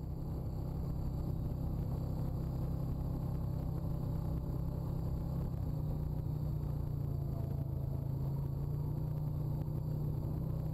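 Honda ATV's single-cylinder engine running steadily while the quad rides a rough dirt two-track, a low rumble whose pitch rises a little about halfway through.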